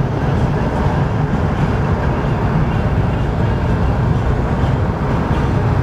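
Steady low rumble of a car driving on a highway, heard from inside the cabin: road and engine noise.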